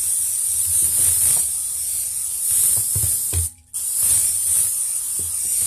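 Aerosol can of vegetable oil cooking spray hissing as it coats a pie pan, in two long sprays with a short break a little over three seconds in.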